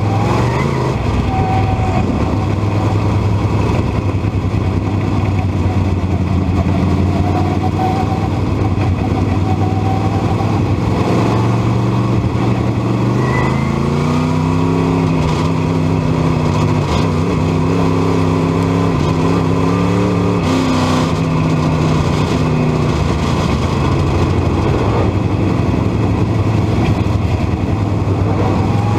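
Dirt modified race car's engine running hard at racing speed, heard from inside the cockpit. Its note is steady, and from about halfway through a higher engine note climbs, holds for several seconds and then falls away.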